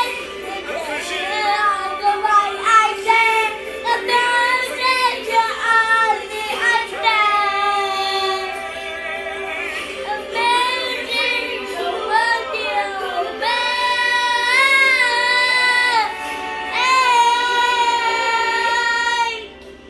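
Young boy singing a melody into a handheld karaoke microphone, ending on two long held notes before his voice stops just before the end.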